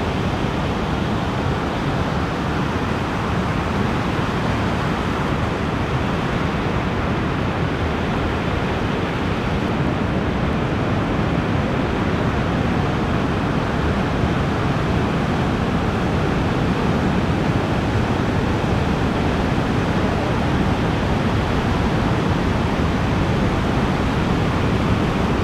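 Steady roar of ocean surf breaking along a point: an even rushing noise with no separate crashes standing out.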